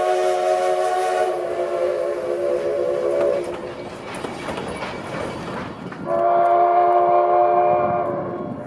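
Steam locomotive whistle of the Durango & Silverton narrow-gauge train blowing a long chord that fades out about three seconds in, then the rumble and clatter of passenger cars rolling past, then a second long whistle blast starting about six seconds in.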